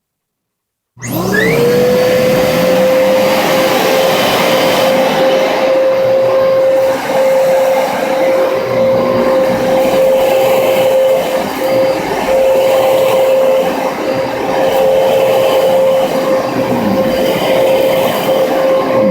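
Dyson DC33 upright vacuum cleaner switched on about a second in, its motor spinning up with a quickly rising whine that settles into a steady high whine over loud airflow noise as it runs.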